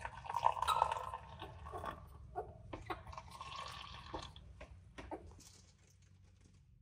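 Liquid being poured into a container, with a scatter of light clicks and knocks, dying away about five and a half seconds in.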